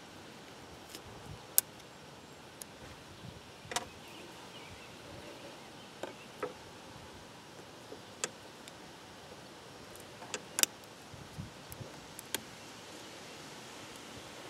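Diagonal cutters snipping at the clamps on an outboard fuel pump's hoses, with scattered sharp clicks and snaps and some small handling noises. The loudest snaps come about a second and a half in and again about ten and a half seconds in. Steady background hiss runs under them.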